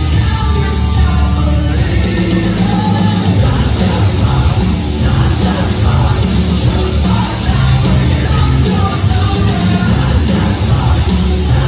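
Loud rock music with electric guitar, drums and singing.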